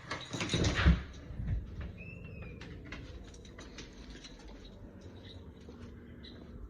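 A bird calling in short, faint chirps, with one clearer whistled note about two seconds in. The first second is covered by loud rustling handling noise.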